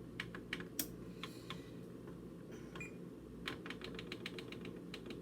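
Buttons on a timer being pressed to set a cooking time: a string of short sharp clicks, with a quick run of repeated presses about three and a half seconds in.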